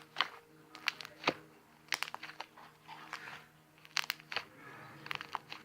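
Fluffy slime being squished and poked by hand, giving irregular clusters of small crackling pops and squelches about once a second.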